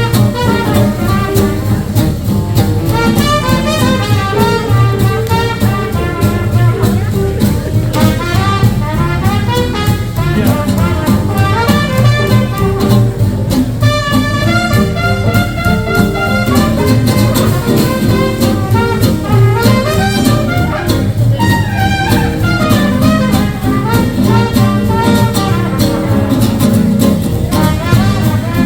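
Live swing jazz band playing an instrumental chorus: a brass horn solos over a steady, swinging rhythm section.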